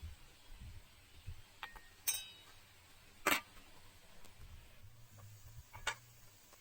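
A few separate light clicks and clinks from cooking utensils being handled, one about two seconds in with a brief ringing tone, and a sharper, louder knock just after three seconds.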